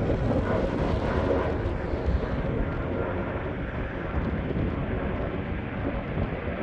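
Jet engine noise of the Airbus A321XLR prototype on a go-around: a steady rumble and roar, its hiss dulling slightly after about two and a half seconds.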